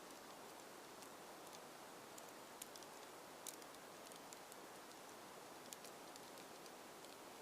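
Near silence: a faint steady hiss with scattered light ticks.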